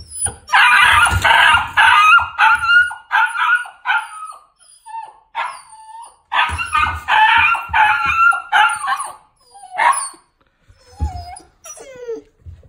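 Borzoi barking in two bursts of rapid, high-pitched barks, each about four seconds long, then a couple of short falling whines near the end.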